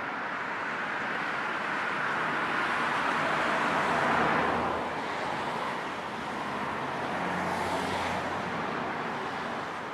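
Road traffic: steady tyre and engine noise that swells as vehicles pass, loudest about four seconds in and again around eight seconds.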